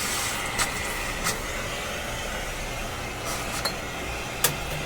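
Vacuum cleaner running steadily while sucking dust off an old tube radio chassis, with a few sharp clicks and clinks, the loudest near the end.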